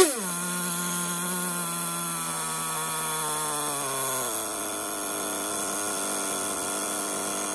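Kyosho GZ15 two-stroke model engine on a test stand, ending a quick throttle blip and then running at a steady fast idle. About four seconds in, as the carburetor is being set with a screwdriver, its speed drops to a lower, rougher idle.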